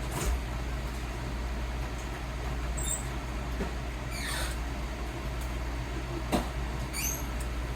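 Bologna frying in a pan: a steady sizzle over a low hum, with a few sharp pops and a couple of short, falling high squeaks.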